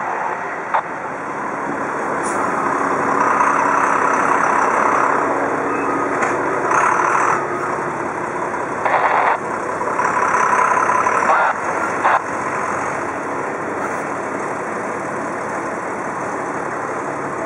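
Diesel engine of an aerial ladder fire truck running as the truck drives up and passes close by. Short stretches of a steady, higher tone come and go over the engine sound.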